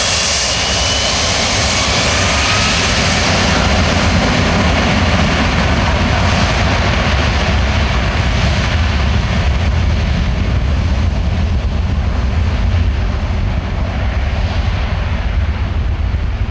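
Boeing 757-200's twin Rolls-Royce RB211 turbofans at takeoff power as the jet accelerates away down the runway. A loud, steady deep rumble, with a high whine that fades as the aircraft draws away.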